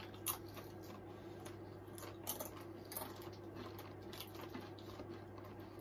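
Faint, scattered crunches and clicks of a chip being bitten and chewed, a few short ones spaced irregularly, over a steady low hum.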